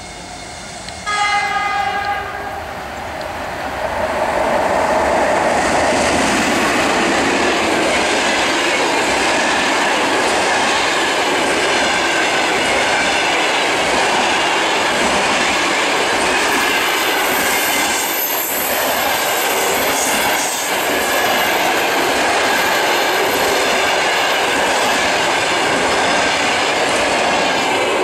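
An EP1M electric locomotive sounds a short horn blast about a second in. It then passes with a passenger train, and the coaches roll by with a loud, steady rumble and wheel clatter on the rails, which fades as the train clears right at the end.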